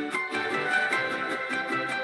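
Mariachi music: strummed string instruments playing a quick, even rhythm of about six strokes a second, with bass notes and a melody over it.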